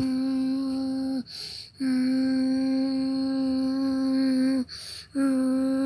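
A person humming one steady held note, three long notes in a row, with a short breath between them.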